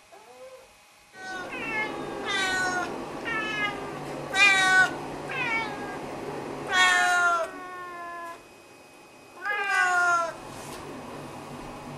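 Snowshoe cats meowing over and over: a faint call at the start, then about seven or eight loud, drawn-out meows that slide down in pitch, the loudest near the middle.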